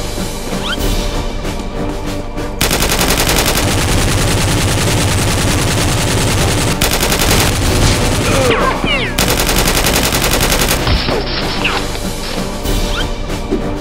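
Rapid automatic gunfire sound effects in long bursts over action background music. The firing starts a couple of seconds in, breaks off briefly twice, and stops shortly before the end.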